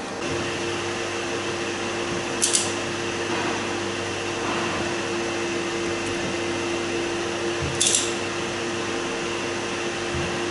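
Steady hum of workshop machinery with two held pitches, broken by two brief high hisses about two and a half and eight seconds in.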